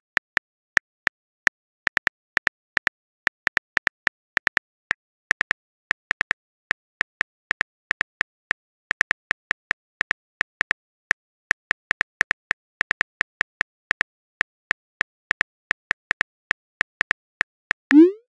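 Phone keyboard key-click sound effects in a texting-app animation, short sharp clicks at an uneven few per second as a message is typed. Near the end comes a brief rising swoosh as the message is sent.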